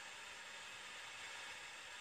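Faint, steady hiss inside a car cabin, with no distinct events.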